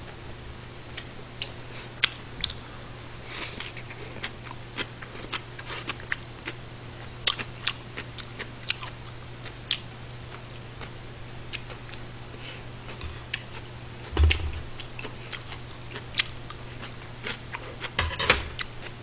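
Eating sounds: scattered light clicks of thin metal chopsticks against plates and a pan, with some chewing, over a steady low hum. A dull knock about three-quarters of the way through, and a quick run of clicks near the end.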